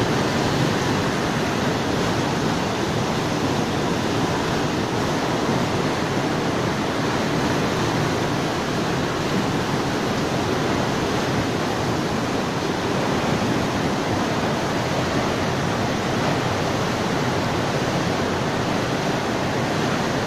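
Swollen, muddy river in flood: a steady, loud rush of fast, churning water.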